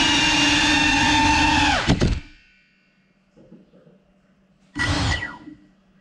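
A GEPRC Cinelog 35 cinewhoop's brushless motors whine steadily in flight, heard close up from the drone itself. About two seconds in there is a knock and the motors cut out quickly as the drone comes down on the floor. About five seconds in the motors give a short burst of whine that falls in pitch.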